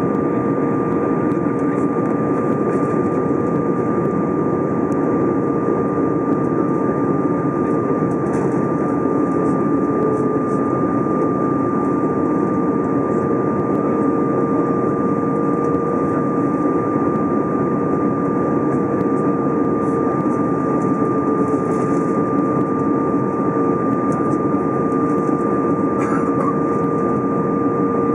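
Airbus A320 in flight heard inside the cabin: a steady, even roar of engines and airflow, with two steady whining tones riding on it, one higher and one lower.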